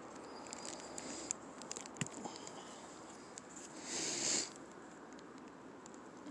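Fingers handling a small clear plastic bag and tiny plastic doll accessories: light scattered clicks and crinkles, then a brief louder rustle about four seconds in.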